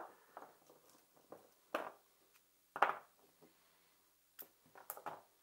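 A few separate sharp clicks and clinks of metal hand tools being handled, as Allen keys are picked up and sorted from a folding hex key set on a wooden workbench.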